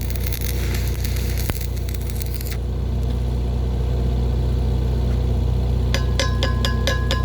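Electric arc welding crackling and hissing for the first two and a half seconds, then cutting off, over a steady low machinery hum. Near the end comes a quick run of sharp, ringing metal-on-metal taps.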